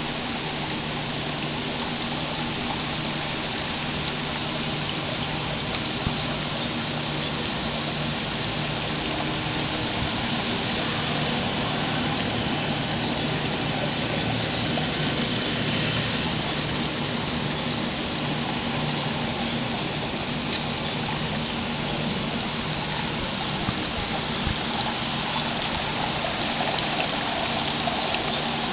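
Water trickling steadily in a tiered garden fountain.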